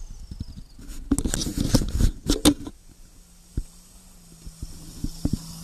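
Dense clattering knocks and scraping from an off-road 4x4's muddy wheel working through mud and debris close to the microphone, stopping about two and a half seconds in. After that, a few single knocks over a faint steady engine hum.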